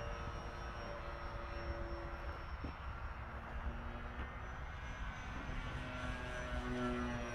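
Small radio-controlled model airplane with a slow-flyer propeller buzzing overhead, its motor and propeller giving a thin steady whine that shifts in pitch a few times as it flies past.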